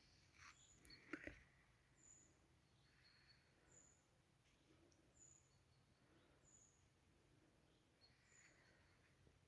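Near silence of early-morning outdoor ambience, with a bird giving short, high chirps over and over, about every second and a half. A brief faint knock comes about a second in.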